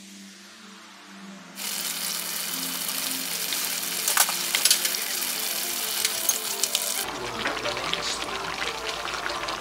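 Ground beef with onions and mushrooms sizzling and crackling as it fries in a stainless steel skillet, with many sharp pops. The sizzle starts suddenly about a second and a half in, over soft background music.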